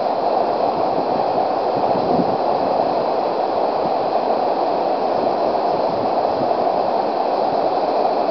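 Steady rushing of a waterfall pouring into a pool, a constant even noise.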